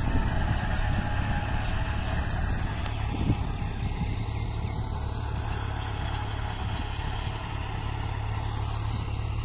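New Holland tractor engine running steadily under load as it drives a rotavator through the soil, with a low rumble throughout. There is one brief knock about three seconds in.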